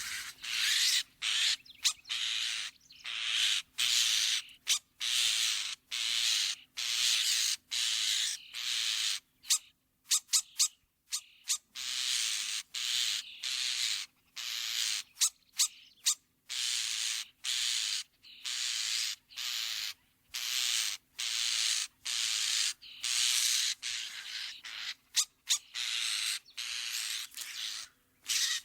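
European starling giving a long series of harsh, noisy, rasping calls, each under a second, with short gaps between them and a few quick clicking bursts among them.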